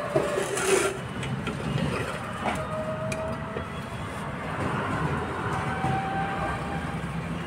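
Low steady background rumble with a few light metal clicks and a short scrape as a submersible pump's steel casing is handled and turned with a screwdriver.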